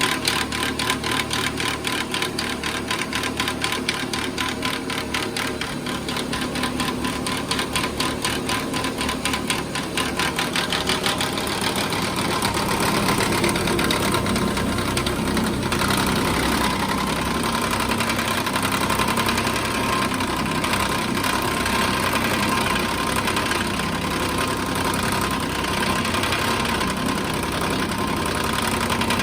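2014 Nissan Pathfinder running with a fast, rapid clatter from under the hood, which the owner puts down to a broken radiator cooling fan. About ten seconds in, the clatter gives way to a louder, steadier whirring rush.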